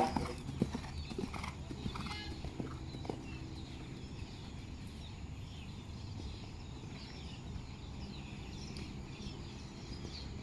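Horse's hoofbeats on a sand arena at the canter, a few sharp knocks in the first three seconds, the loudest right at the start, over steady background noise.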